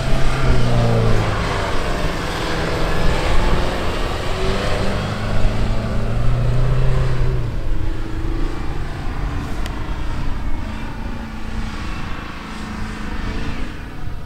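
Tata Safari Storme's diesel engine revving under heavy throttle as the SUV powers up a soft sand dune, its pitch rising and falling with the throttle. It is loudest in the first two seconds and again about five to seven seconds in, then eases off.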